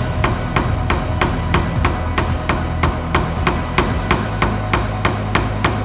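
Steady, evenly spaced sharp tapping, about three taps a second, over a steady low hum; the tapping stops abruptly at the very end.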